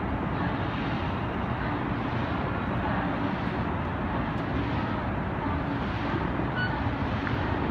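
Steady rumbling background noise with no distinct events and no change as the fountain jets rise.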